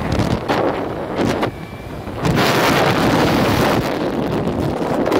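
Wind buffeting the microphone of a Honda scooter riding at about 60 km/h: a loud rushing that dips briefly about a second and a half in, then comes back stronger.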